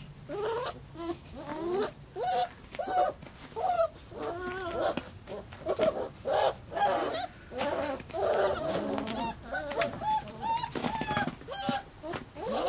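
Puppies whining and yelping: a fast run of short, high, wavering cries, several a second, with some overlapping. They are unhappy in the cold and snow on their first time outdoors.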